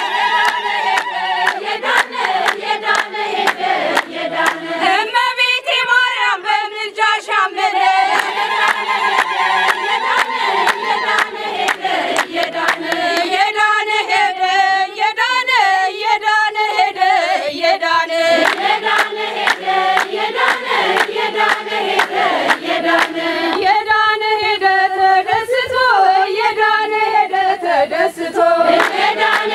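A group of women singing an Ethiopian Orthodox hymn together in unison, with hand claps running through the singing.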